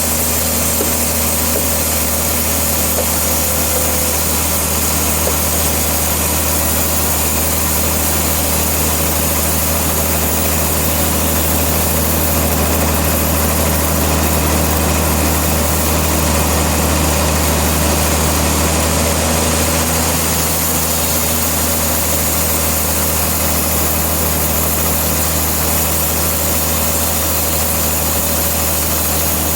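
Sawmill machinery running with a steady, unchanging engine drone.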